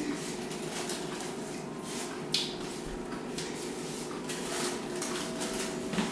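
Steady indoor background hum with a few faint steady tones, under scattered light clicks and rustles; one sharper click about two and a half seconds in.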